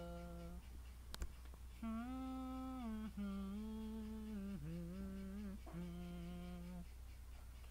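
A voice humming an unaccompanied melody without words, in a few long held notes that step up and down in pitch. A steady low hum lies underneath, and a single sharp click comes about a second in.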